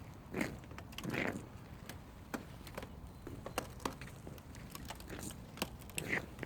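Ice cracking: irregular sharp cracks and clicks, with longer crunching cracks about half a second in, just after a second, and again near the end.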